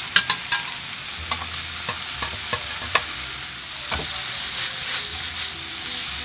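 Prawns, squid and pork sizzling in a nonstick frying pan as a stir-fry is tossed with chopsticks: a steady frying hiss broken by many sharp clicks of the chopsticks and food against the pan.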